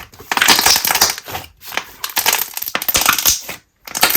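Thick, glossy slime with a slightly overactivated base being squeezed and worked by hand. It gives loud, sticky crackling and popping in several bursts about a second apart, with short quiet gaps between them.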